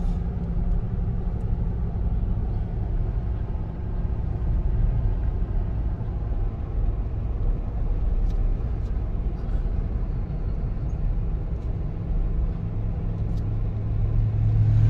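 Steady low rumble of a Jeep's engine and tyres, heard from inside the cabin while driving slowly. The engine hum grows louder near the end.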